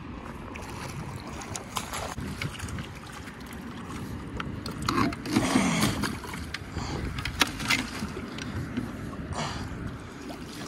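A hooked catfish splashing at the surface as it is netted beside a boat, loudest about halfway through, with a few short knocks. Steady wind and water noise runs under it.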